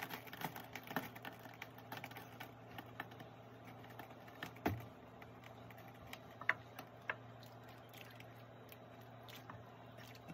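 Scattered small drips, taps and clicks as a soaked wig is lifted and handled over a pan of dye water, over a low steady hum.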